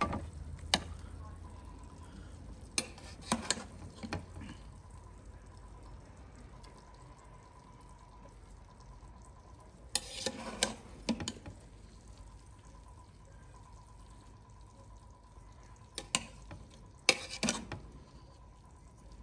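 Metal serving spoon scraping and knocking against the inside of a large aluminium pot as cooked biryani rice is scooped out and tipped onto a plate, in a few short clusters of clatter about 3, 10 and 17 seconds in, over a faint steady high tone.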